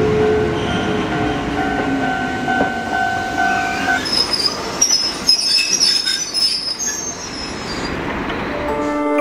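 Electric train running at a station, its wheels squealing on the rails over a low rumble. Steady squeal tones give way about four seconds in to a higher, crackling screech. Music fades in near the end.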